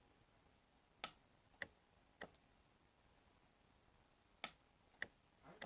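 Jeweler's micro-welder firing: five or six sharp snaps at uneven intervals, each a weld pulse tacking thin white gold wire on a ring's broken cage.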